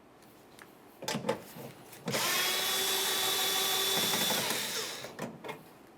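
A few light clicks, then a cordless power tool spinning an 11mm socket starts abruptly about two seconds in and runs with a steady whir for about two and a half seconds before winding down. It is backing off a tailgate latch mounting nut.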